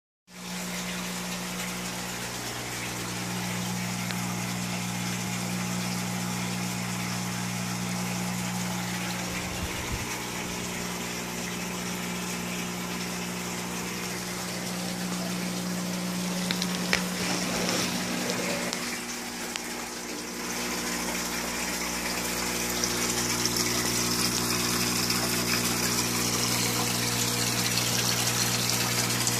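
Aquaponics system running: a water pump humming steadily under the continuous splash and trickle of circulating water. The water sound grows louder about twenty seconds in.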